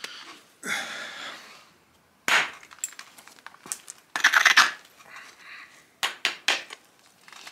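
Basalt being knapped with a stone: several sharp stone-on-stone strikes and clinks of flakes coming off, with a couple of longer rough rasping stretches between them, the loudest a little past the middle.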